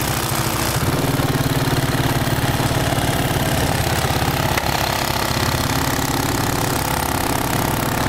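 ATV engine running at low, steady throttle, heard close up from the machine's front rack, with an even low pulse; its pitch steps up about a second in as it picks up speed.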